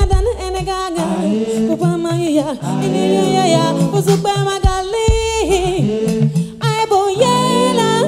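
A woman singing lead with a live band, her voice gliding between held notes. Deep thuds come in near the start and twice about five seconds in.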